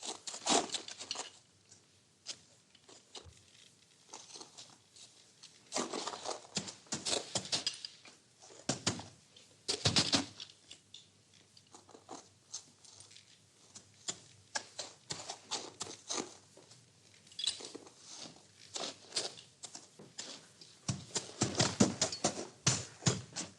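Horse feeding on hay: dry rustling and crisp crunching in irregular bursts of a second or two, with quieter gaps between.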